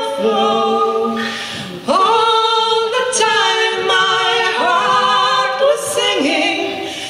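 Unaccompanied voices singing in harmony, a slow chorus of long held notes, with a short break about two seconds in before the next phrase.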